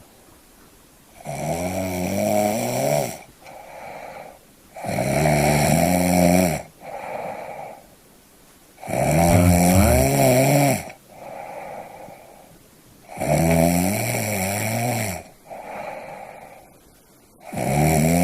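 Snoring in a steady rhythm: a loud, wavering snore of about two seconds roughly every four seconds, five in all, each followed by a shorter, quieter snore.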